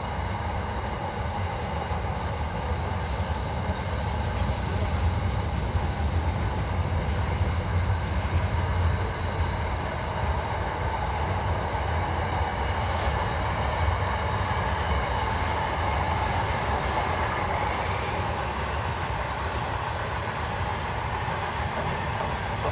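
Freight train wagons rolling past with a steady, continuous rumble of wheels on rail. The container wagons are running mostly empty.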